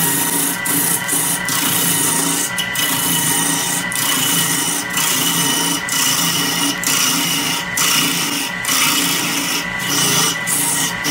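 A gouge cutting into a large wooden blank spinning on a wood lathe: a continuous rough, hissing scrape, broken by short gaps several times as the tool eases off, over steady tones from the running lathe.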